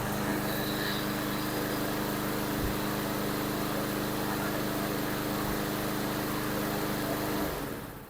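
Briggs & Stratton 725 EXI single-cylinder mower engine running steadily after a carburetor clean and fresh fuel, running as it should. Near the end it is shut off and winds down to a stop.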